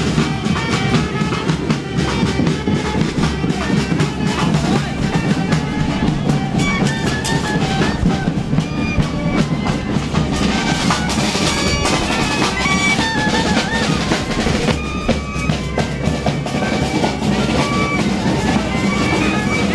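Parade band music: drums beating a steady festive rhythm with a reedy wind instrument playing a melody over them.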